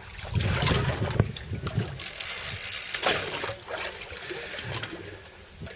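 Wind buffeting the microphone over a hiss of sea water around a boat at sea, gusting louder in the first three seconds or so and then easing.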